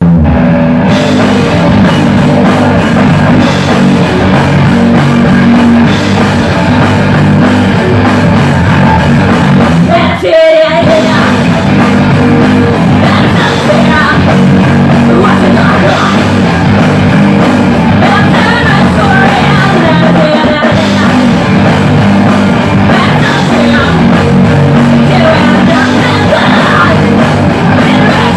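Rock band playing loudly with sung vocals, in a rough, lo-fi recording, with a brief break about ten seconds in.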